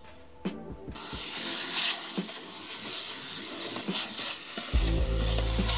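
Vacuum cleaner sucking through its metal wand and nozzle inside a drawer: a steady hiss that starts about a second in. A deep steady hum joins near the end.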